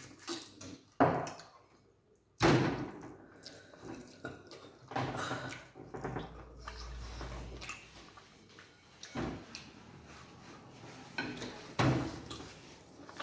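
Wet, sticky mouth sounds of eating starch dipped in slimy okra soup by hand: sucking, lip-smacking and squishing, in several sudden loud bursts with quieter chewing between.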